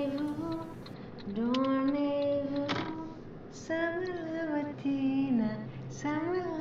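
A woman singing long wordless notes, each held about a second, some sliding up or down in pitch, with little or no accompaniment.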